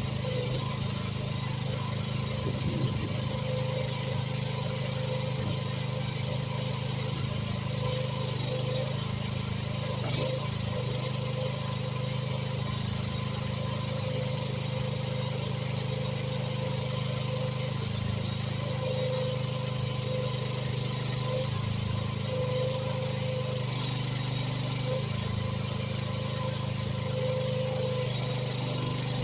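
AGT H13R mini excavator running steadily while digging, its engine note shifting now and then as the hydraulics take load, with a higher whine that swells and fades.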